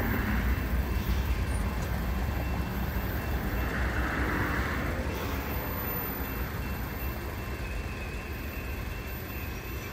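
CSX freight train's cars rumbling along the track as the train moves away, the sound slowly fading.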